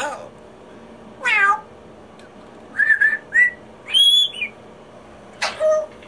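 African grey parrot mimicking sounds: a falling, meow-like call about a second in, then a few short whistled notes and an arching whistle, with another call near the end.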